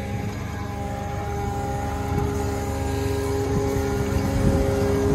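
Farm tractor's diesel engine running steadily: a constant drone over a low rumble.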